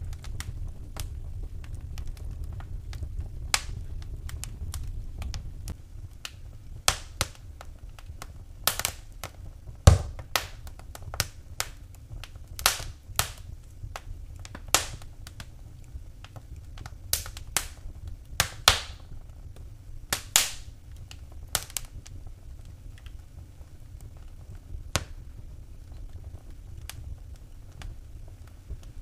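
Wood fire burning in a fireplace, crackling with irregular sharp pops that come thickest in the middle, over a low steady rumble of the flames.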